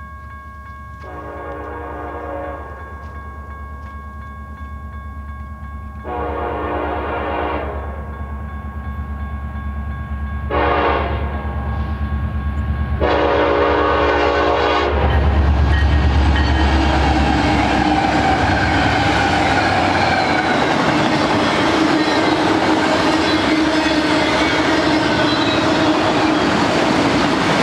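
Horn of a Union Pacific EMD SD70AH freight locomotive sounding the grade-crossing signal of long, long, short, long as the train approaches. Then the lead diesels pass with a heavy engine rumble, followed by the steady rumble and clatter of auto-rack and double-stack cars rolling by.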